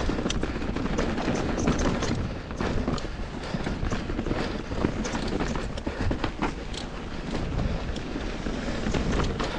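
Mountain bike descending a dirt singletrack at speed: knobby tires crunching over loose dirt and rocks, with frequent clicks and rattles from the bike over bumps and a steady rumble of wind and ground noise on the camera.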